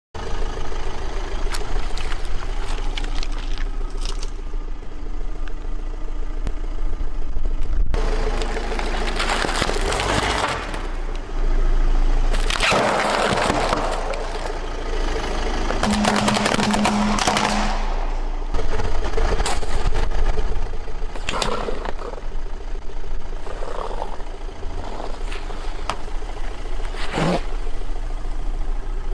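A car tyre rolling slowly over objects on paving stones and crushing them: several stretches of crackling and crunching and a few sharp pops, over the low, steady running of the car's engine.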